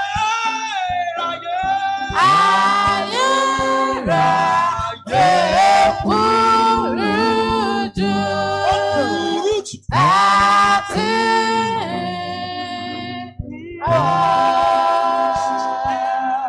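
Worship singing: voices sing long held phrases that break off and restart every second or two, over a steady sustained low accompaniment.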